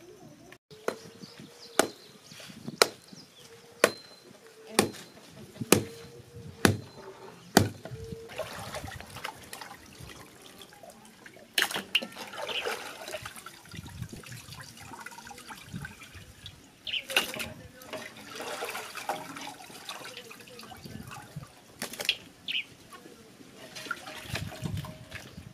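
Knife chopping raw meat, about one stroke a second for the first eight seconds. Then raw meat being washed by hand in a metal pot of water, splashing and sloshing, with now and then a piece set into a metal basin.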